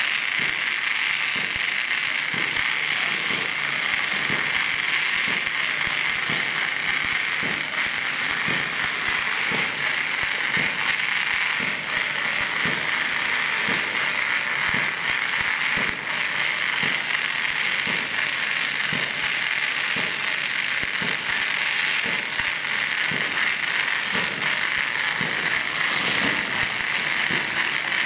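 Foam being sprayed from a hand-held foam lance: a steady jet hiss, with faint irregular clicking underneath at a few per second.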